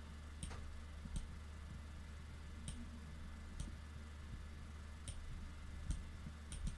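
Computer mouse button clicking, about eight faint, irregularly spaced clicks, pressed and released for each stroke drawn, over a steady low hum.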